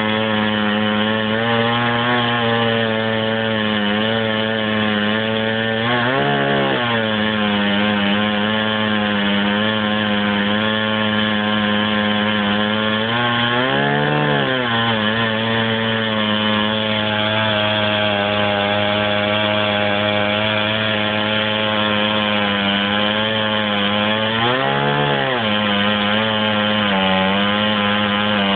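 Chainsaw mounted in a chainsaw mill running at steady high revs while cutting through a log. Its pitch briefly rises and falls back three times.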